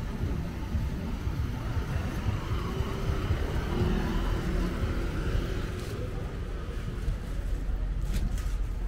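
Outdoor city ambience on a seaside promenade: a steady low rumble with distant traffic and faint voices, and a few sharp clicks near the end.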